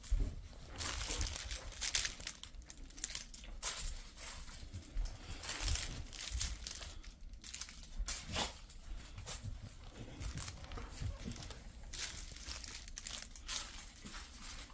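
A Jindo dog chewing, shaking and tossing a green plush crinkle toy: irregular crinkling and rustling.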